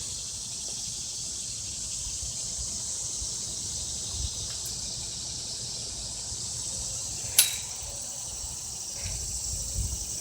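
Steady, high-pitched outdoor insect chorus with a faint low rumble beneath, and one sharp click about seven seconds in.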